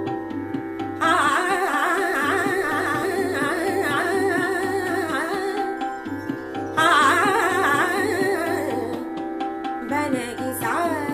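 Indian classical-style music: a woman's singing and an ornamented, gliding melody line over a steady drone, with a tabla beat underneath. The melody enters abruptly about a second in, and again more loudly about seven seconds in.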